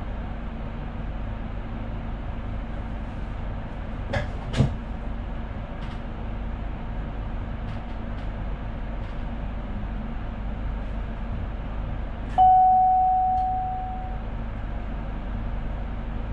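Steady running noise inside the cab of a Sprinter New Generation electric train, with two sharp clicks about four seconds in. About twelve seconds in, a single chime rings out and fades away over a second or so.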